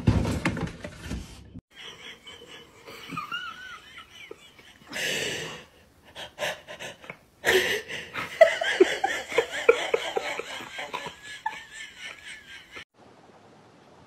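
A person laughing breathily, in several short stretches, with a short burst of noise about five seconds in.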